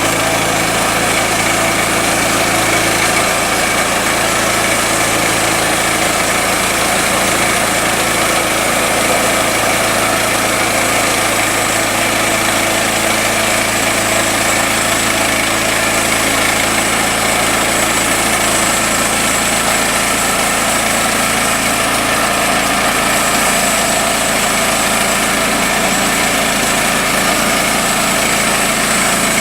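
Portable band sawmill's small gasoline engine running steadily at a constant speed.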